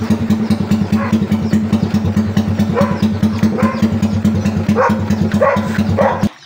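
Yamaha Sniper 135's single-cylinder four-stroke engine idling steadily with an even, rapid beat, cutting off suddenly near the end.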